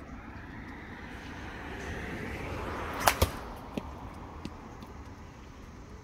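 A baseball bat striking a pitched ball with a sharp crack about three seconds in, followed at once by a second knock and a lighter click a moment later. A rush of noise swells just before the hit.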